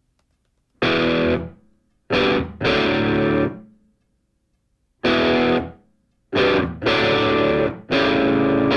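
Distorted electric guitar playing loud chords, each struck and held for half a second to a second, with silent gaps between them.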